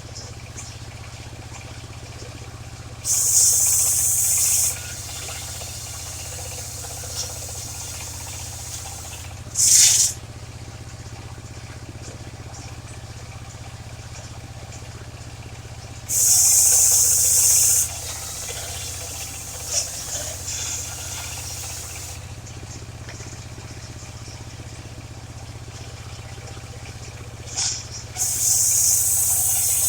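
The engine of a mobile circular sawmill running steadily with a low hum. Four times, a loud high hiss of one to two seconds cuts in over it.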